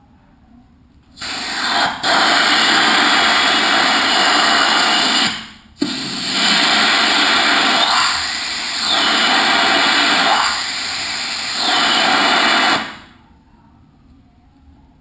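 Compressed air from an air compressor hissing loudly out of a hose. It starts about a second in, cuts off for a moment about five and a half seconds in, runs again with two brief dips, and stops about two seconds before the end.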